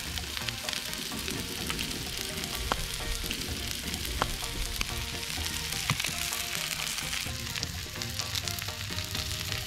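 Tuna steaks searing in oil on a hot steel flat-top griddle: a steady sizzle with scattered pops and crackles.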